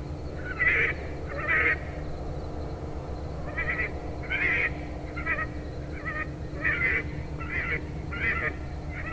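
Electronic predator call playing the "Neck Ringer" sound: short, squawking, fowl-like cries. There are two near the start, a pause of about two seconds, then a steady run of about one cry a second.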